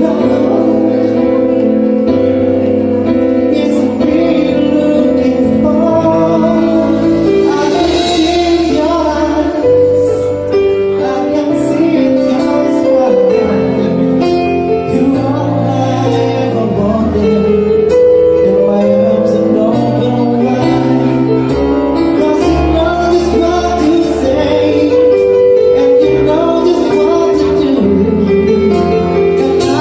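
Live band playing a song, with singing over bass and other instruments.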